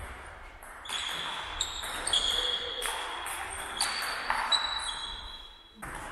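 Table tennis rally: the ping-pong ball clicks off the bats and the table, several hits about half a second to a second apart, echoing in a large sports hall.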